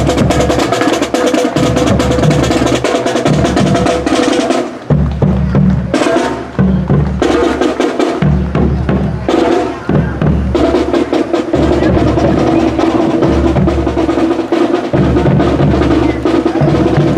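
Marching band drums playing in a parade: rapid snare drum rolls over low bass drum beats, with steady held tones underneath.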